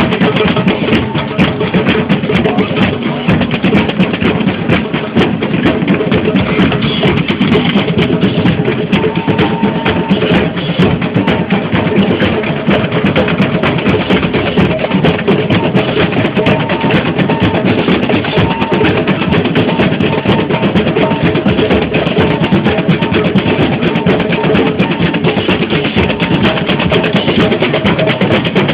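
Many drums and percussion instruments beaten together by protesters in a dense, fast, continuous rhythm.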